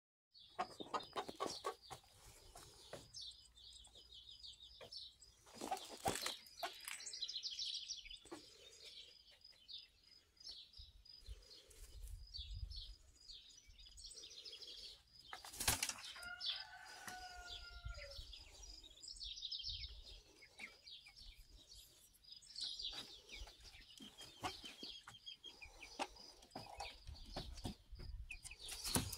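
White Leghorn hens flapping their wings in short bursts, with steady rapid high chirping in the background.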